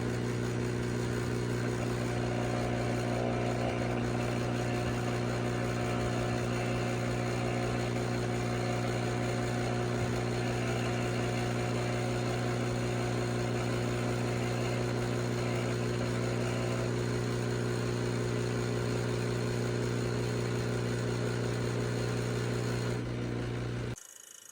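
Window air conditioner running with a steady low electrical hum and overtones, a fainter higher tone over it for much of the time; the sound cuts off near the end.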